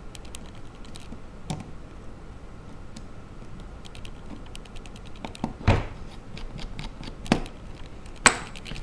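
Light clicks and taps of a mini screwdriver and small phone parts being handled while a tiny screw is driven into an iPhone 3GS, with a few sharper clicks near the end.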